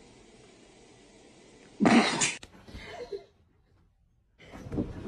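A dozing dog lets out one short, loud burst of breath through its nose about two seconds in. Other noise from the next clip starts near the end.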